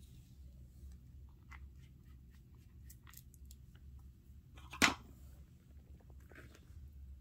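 Faint small clicks and rustles of small objects being handled on a tabletop, with one sharp click about five seconds in, over a low steady hum.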